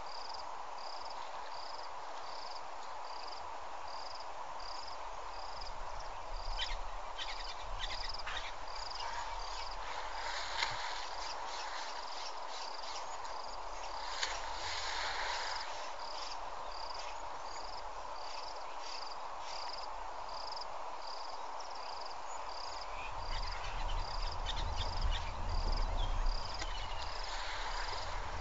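An insect chirping in an even, steady rhythm of about one and a half high chirps a second, over a constant outdoor hiss and a faint hum; a low rumble rises near the end.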